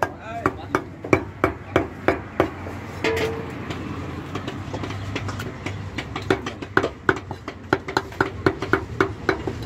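Butcher's cleaver chopping mutton on a wooden block, quick even strokes at about three a second, easing off for a few seconds in the middle before starting again.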